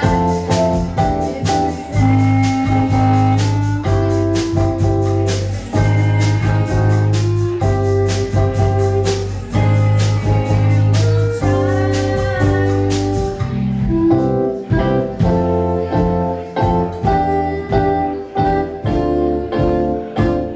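Live band playing an instrumental passage: sustained keyboard chords over electric bass and a drum kit, with steady drum and cymbal hits.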